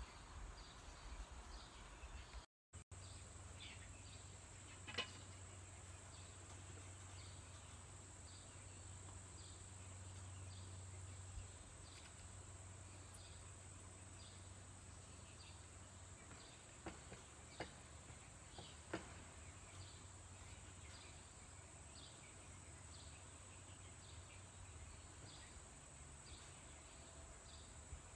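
Near silence outdoors: a faint insect chirping in a slow, even rhythm, with a few faint clicks.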